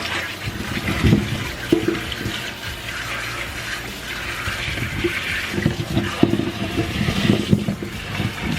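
Tap water running into a sink over freshly dug potatoes being rinsed, a steady hiss with repeated low knocks and clunks as the potatoes are handled.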